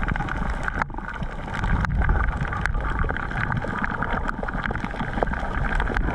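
Muffled underwater sound from a camera held below the surface: a steady low rumble and wash of moving water, with scattered sharp clicks.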